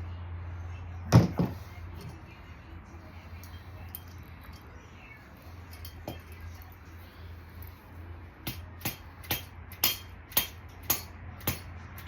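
Metal tools clinking against metal: one loud clank about a second in, then a steady run of sharp metallic taps about two a second near the end, over a low steady hum.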